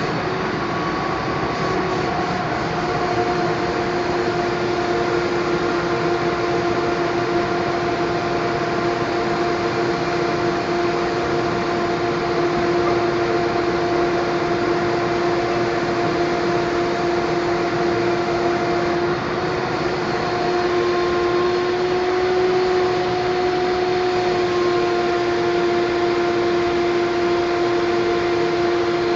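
Air supply for a clearcoat spray gun running steadily: a continuous rush of air with a steady hum over it, dipping briefly about 19 seconds in.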